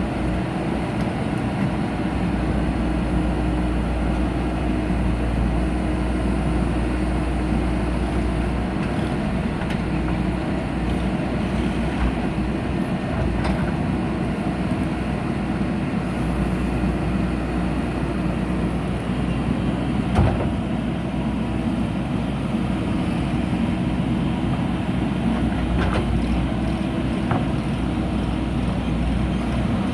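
JCB 3DX backhoe loader's diesel engine running steadily under digging work, with a few short knocks, the sharpest about twenty seconds in.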